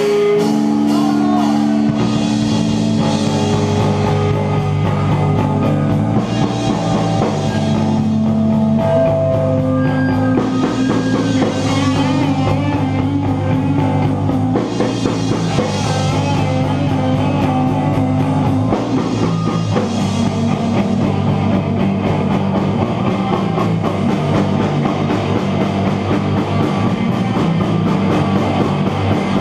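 Hardcore punk band playing live, with loud distorted electric guitars and bass over a drum kit. A held guitar chord opens, and the full band is playing within the first couple of seconds.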